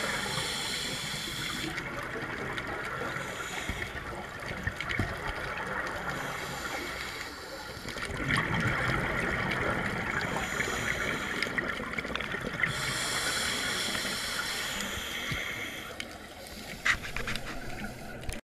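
A scuba diver breathing through a regulator underwater: bubbly hissing swells up and dies away every few seconds with each breath. A single sharp click comes near the end.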